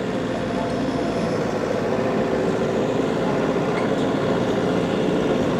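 Engine of a piece of digging equipment running steadily at a constant speed, a continuous even drone with no changes.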